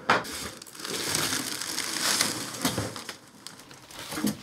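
Cardboard shipping box and clear plastic air-cushion packing rustling and crinkling as a boxed pen tablet is pulled out of it, with a few short knocks of box against box.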